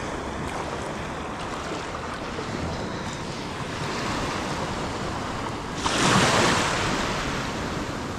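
Shallow beach surf washing and lapping around the wading angler, with a louder rush of water about six seconds in that fades away, and some wind buffeting the microphone.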